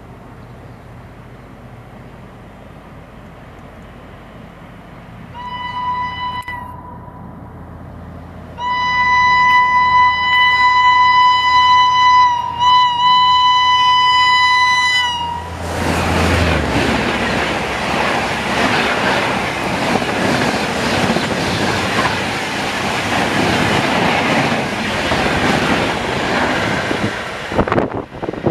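An approaching high-speed express train sounds its horn: a short blast, then a long held blast of several seconds. The train then rushes past at speed with loud wheel and rail rattle, clickety-clack, and wind noise, which cuts off suddenly near the end.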